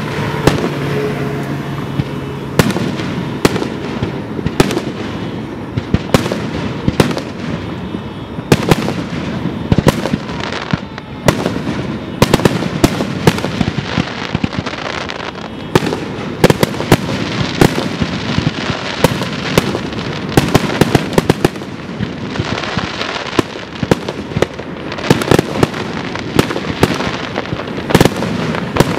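Aerial fireworks display: shells bursting in rapid succession, many sharp bangs close together, with the noise never dying away between them.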